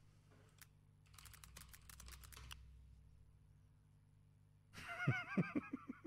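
A quick run of computer keyboard or mouse clicks for about a second and a half. Near the end a louder wavering, pitched call starts, its pitch swooping down several times.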